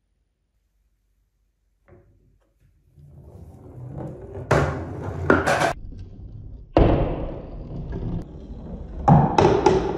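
Many balls rolling down a wooden marble-run track, a steady rolling sound that builds from about two seconds in, with several sharp clacks as the balls hit the wood and each other.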